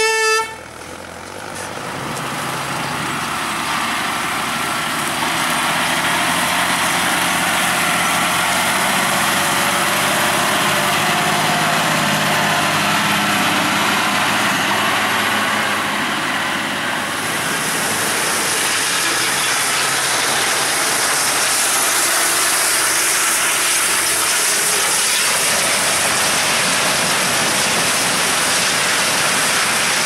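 A vehicle horn toots once, briefly, at the start. Then a tractor engine runs steadily as it pulls a loaded grain trailer. About halfway through, the sound changes to a denser, brighter rushing noise of tractor and harvest machinery.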